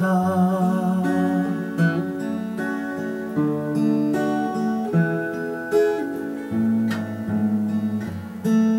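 Acoustic guitar played as an instrumental passage of a slow folk song, the chords changing every second or two. A sung note held with vibrato dies away in the first second and a half.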